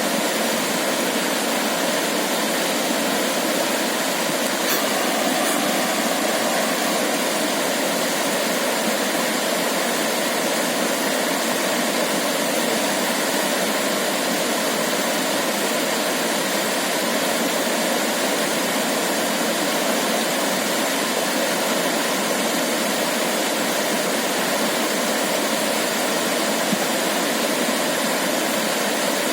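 Steady, even rushing noise with no low rumble and no swell or change in level, with two faint clicks about five seconds in.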